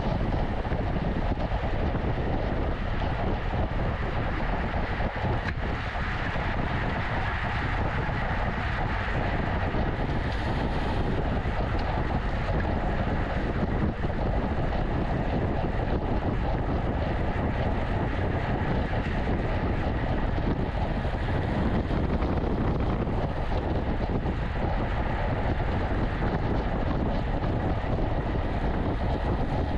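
Steady rush of wind over the microphone of a camera carried on a bicycle moving at race speed, with road and tyre noise underneath.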